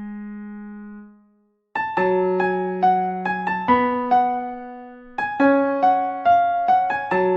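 Solo piano playing a slow melody over chords. A held chord fades out, there is a brief silence about a second and a half in, then the tune picks up again with a run of single notes, pauses to let a chord ring, and goes on.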